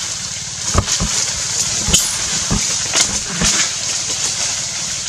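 Outdoor ambience among trees: a steady high hiss and a low rumble, with about six short knocks or rustles in the first three and a half seconds. No monkey calls stand out.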